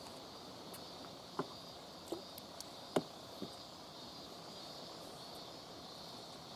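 Insects, such as summer cicadas or crickets, keeping up a steady high buzz, with a few light knocks scattered through it, the sharpest about three seconds in.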